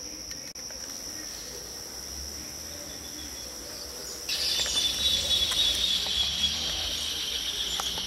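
Insects chirring steadily in the background with a constant high-pitched tone; about four seconds in, a louder, hissier insect buzz joins and carries on.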